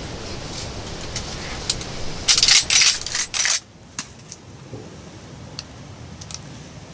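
A brief burst of sharp metallic clatter and rustling, then a few light separate clicks, as a lever-action .30-30 rifle is handled and readied to shoot.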